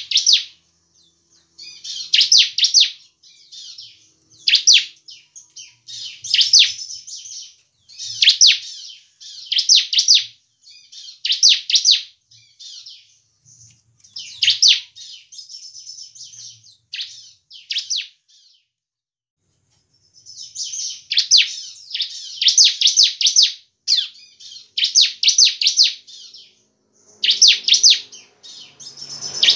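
Caged bar-winged prinia (ciblek) singing: short phrases of rapid, high, sharp notes that sweep downward, repeated every second or two, with a pause of about two seconds past the middle.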